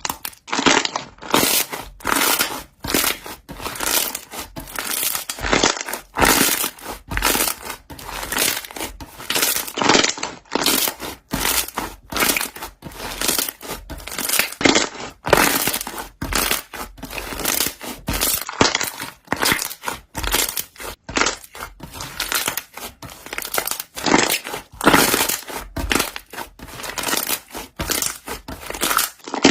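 Air bubbles in slime popping and crackling as it is pressed and squeezed: a dense, irregular run of short crunchy pops.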